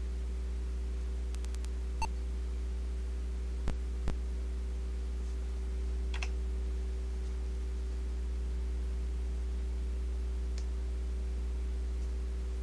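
Steady low electrical hum with a few steady higher tones above it. Three short clicks come about two seconds in and twice around four seconds in.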